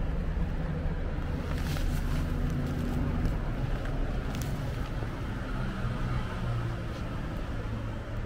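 A motor vehicle's engine running with a steady low hum, with a few faint clicks over it.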